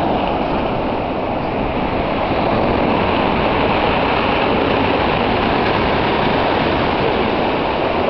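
Stormy sea surf breaking and washing up a pebble beach, a loud steady rush of water.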